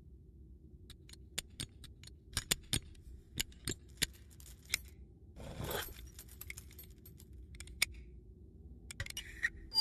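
Foley of metal robots handling a metal machine: a string of sharp metallic clicks and clinks, with a short scraping swish about halfway through, over a low steady rumble.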